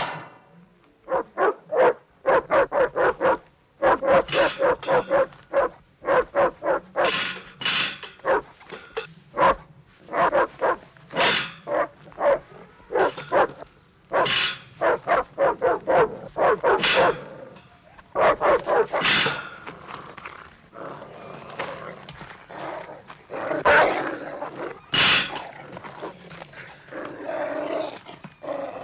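White German Shepherd barking and snarling in rapid volleys with short pauses: the aggressive barking of an attack-trained dog lunging at the bars of its cage.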